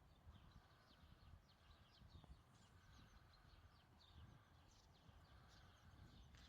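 Near silence: faint outdoor ambience with many quiet, short, high chirps over a low rumble.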